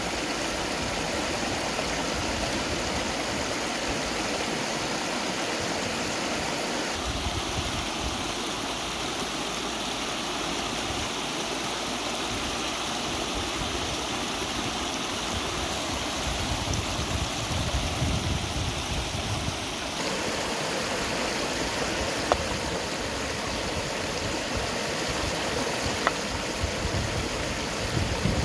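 Shallow rocky river flowing steadily, a constant rush of water over stones. A couple of short sharp clicks stand out in the second half.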